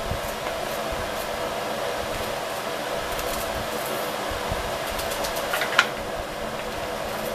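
A steady mechanical whir from a running appliance, with a few small crisp clicks of a knife cutting an onion held in the hand, the sharpest one near the end.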